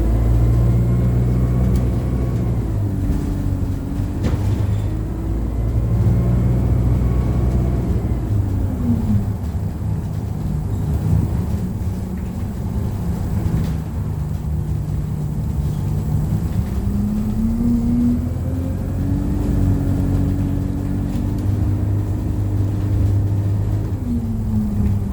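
An ADL Enviro200 single-deck bus engine and driveline, heard from the passenger cabin. The engine note holds steady, drops about nine seconds in as the bus slows or changes gear, rises again around seventeen seconds as it picks up, then falls near the end.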